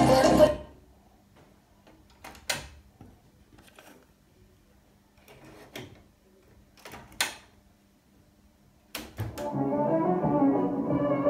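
Sharp GF-777Z boombox: the radio sound cuts off, then a few separate sharp mechanical clicks and clunks from its cassette deck as the door is opened, a tape put in and the keys pressed. About nine seconds in, music starts playing from the speakers.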